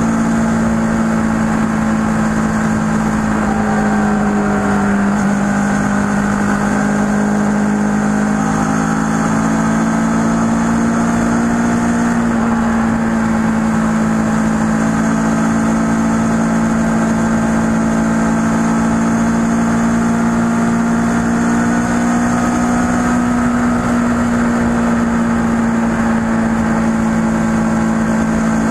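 Kawasaki ER-6n's 649 cc parallel-twin engine running at a steady cruise under way, its note holding nearly constant with only slight rises and falls, over a steady rush of noise.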